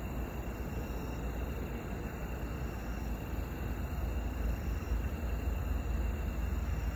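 Wind buffeting the microphone outdoors: a steady low rumble with a rustling hiss, getting slightly louder toward the end.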